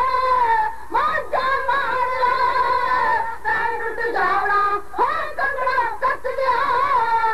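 Women dhadi singers singing a Punjabi ballad together in long, wavering held notes, with short breaks and swoops in pitch between phrases.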